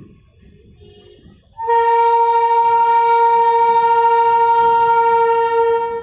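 Horn of an approaching WAG-12B electric freight locomotive sounding one long steady blast of about four seconds, starting about a second and a half in, over the low rumble of the train.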